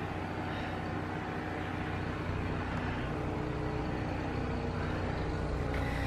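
A motor vehicle engine running steadily, a low hum that grows slightly louder toward the end.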